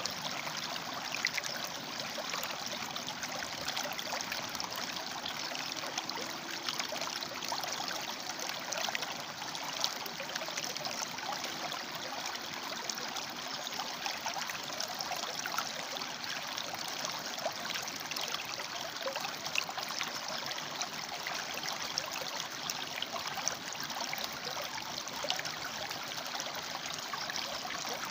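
River water flowing and splashing among rocks: a steady rushing with many small bubbling splashes.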